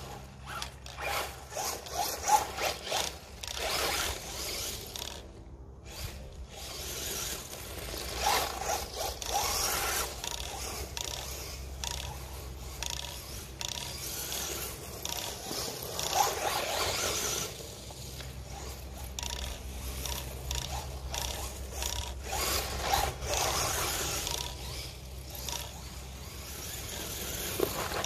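Himoto Katana E10 brushless 1/10-scale electric RC truggy driving on grass: repeated surges of motor and drivetrain noise as it speeds up and slows down, mixed with its tyres scrubbing through the grass.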